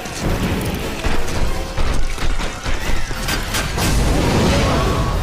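Animated-film soundtrack: a dramatic orchestral score mixed with a run of sharp crashes and booms about two to three and a half seconds in.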